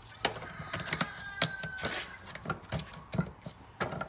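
Metal mower-deck chute bracket and its shaft clinking and knocking against the jaws of a bench vise as it is handled and set in place, a string of separate taps and clicks. A short high squeak of metal rubbing about a second in.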